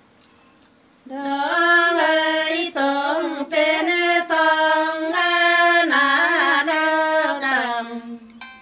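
A woman singing a verse of Nùng call-and-response folk song (hát đối đáp) solo and unaccompanied, holding long notes with small turns and slides between them. The singing starts about a second in and trails off near the end.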